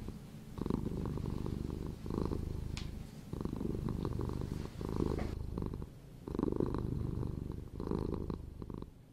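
Domestic cat purring: a low, fluttering rumble in repeated pulses that rise and fall with each breath in and out, separated by short pauses.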